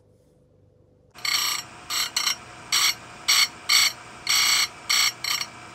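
A bright, buzzy electronic beep sounding about nine times in an uneven rhythm, some beeps short and some longer, starting about a second in.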